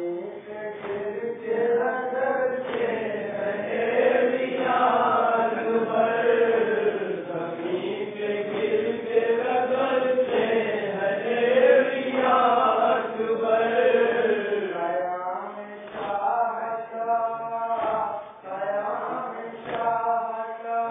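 Men chanting a Muharram lament (noha) in a slow, wavering melody, with sharp chest-beating (matam) slaps landing about every two seconds.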